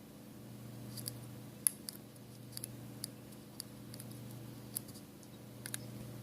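Small sharp clicks and taps, a dozen or so at irregular intervals, from small tools and parts being handled while flex-cable connectors are pressed onto an opened iPhone 5s's logic board. A steady low hum runs underneath.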